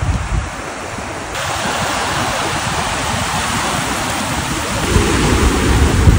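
Wind buffeting the microphone over the steady hiss of shallow surf, the low rumbling gusts growing louder near the end.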